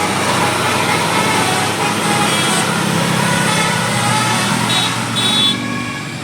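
A bus engine running close by, loud and steady under a dense wash of road and street noise. Two short high tones sound about five seconds in.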